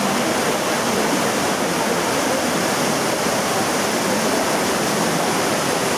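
Shallow river rushing steadily over a rocky bed.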